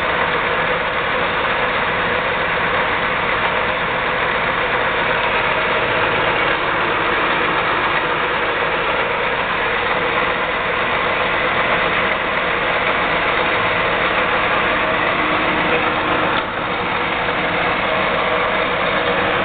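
ENCO 13 x 40 bench lathe running under power with the longitudinal feed engaged: a loud, steady mechanical whir of the running machine, with a brief dip in level near the end.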